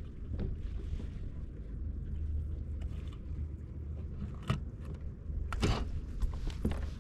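Water and handling sounds on a kayak: a steady low rumble, with a few sharp splashes or knocks about four and a half and five and a half seconds in.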